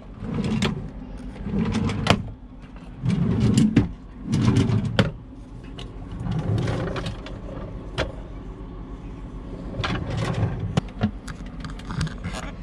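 Wooden kitchen drawers in a campervan being pulled open and pushed shut: low sliding rumbles with sharp knocks and clicks as they stop, several times over.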